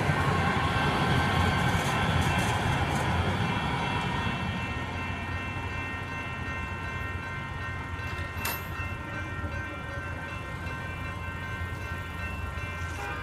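Railroad crossing electronic bells ringing steadily as several high tones, while a VTA light rail train rumbles past and fades away over the first several seconds. A single sharp click about eight and a half seconds in.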